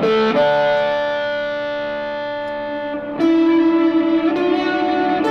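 Electric guitar chords held by an Electro-Harmonix Super Ego+ freeze effect: a chord struck at the start sustains evenly without decaying, and a new frozen chord takes over about three seconds in, shifting again about a second later.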